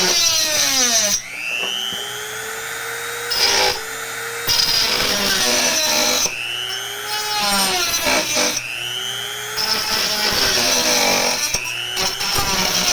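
Handheld rotary tool with a small saw bit cutting a flattened PVC plate. Its motor whine rises and falls in pitch over and over, every two seconds or so, with stretches of hissy cutting noise in between.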